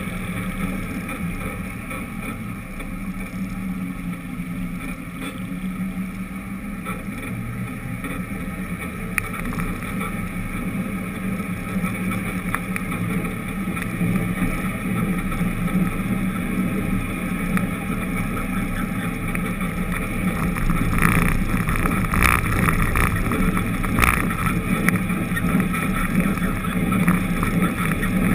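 Engine hum and road noise from a vehicle driving along a city street, recorded from a camera mounted on it. The sound gets somewhat louder in the second half, and a few short sharp knocks come about three-quarters of the way through.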